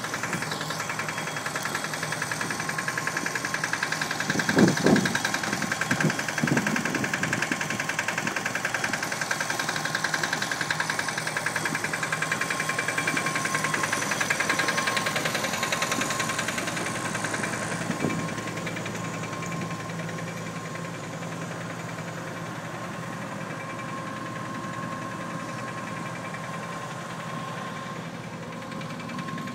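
Engine-driven 8-inch rotary lobe wellpoint pump in a sound-attenuated enclosure, running steadily while it pumps on a wellpoint dewatering system. A few low thumps come about five seconds in, and the hum grows a little quieter over the last third.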